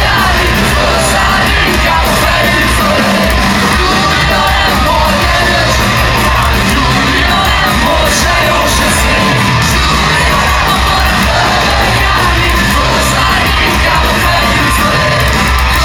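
Punk rock band playing live at full volume: electric guitars, bass, drums and a singer, with the crowd shouting along. The song stops right at the end.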